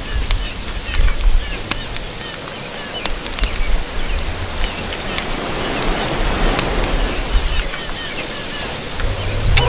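Outdoor summer ambience: a steady wash of noise with many small, quick high chirps and ticks scattered through it, and wind rumbling on the microphone at times.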